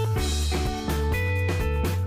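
Background music with guitar, bass and a steady drum beat.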